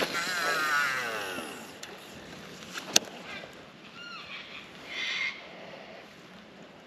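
Baitcasting reel's spool whirring during a cast, its pitch falling over about a second and a half as the lure flies out, then a single sharp click about three seconds in, followed by a few short chirps and a brief hiss.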